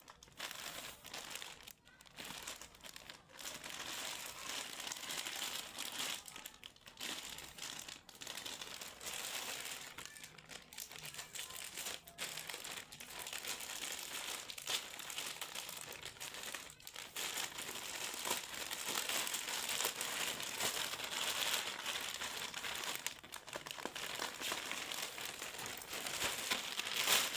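Packaging crinkling and rustling as a new backpack is handled, broken by a few short pauses.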